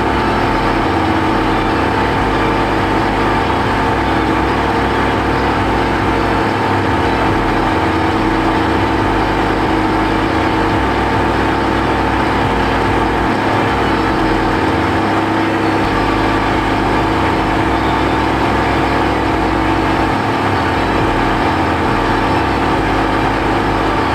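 A Subaru Pleo's 660 cc engine idling steadily, with several constant tones above the engine note.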